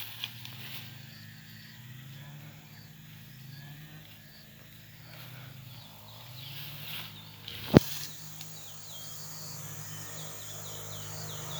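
Wild curiós (chestnut-bellied seed finches) singing, with a run of quick, repeated downward-sliding notes near the end, over a steady low hum. There is one sharp knock, the loudest sound, about eight seconds in.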